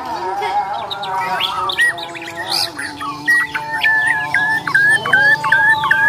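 White-rumped shama (murai batu) singing its fighting song: varied quick whistles and warbles, then from about three seconds in a fast run of the same short hooked note, repeated two or three times a second.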